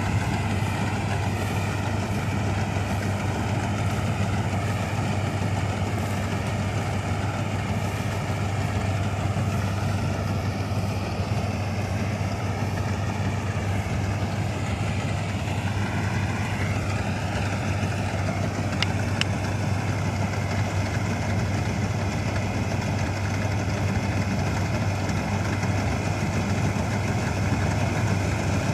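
Vintage combine harvester running steadily, its engine giving a constant low hum under a wavering mechanical whine, with a couple of faint ticks about two thirds of the way through.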